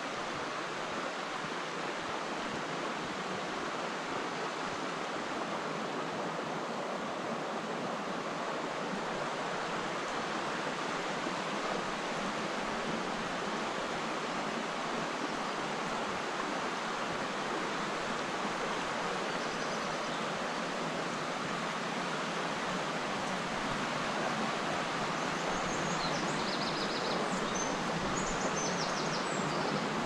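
The Vartry River rushing over rocks: a steady, even rush of water that grows a little louder near the end.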